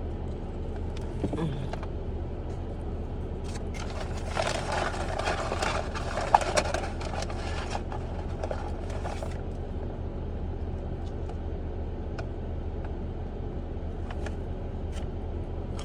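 Car engine idling as a steady low hum, with several seconds of noisy handling, with small clicks, about four seconds in.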